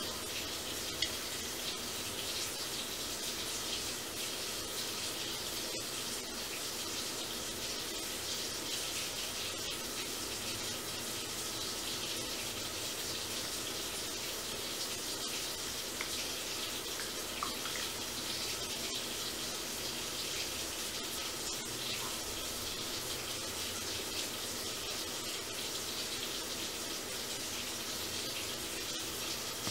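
Steady, even hiss of room background noise, with a faint click or two.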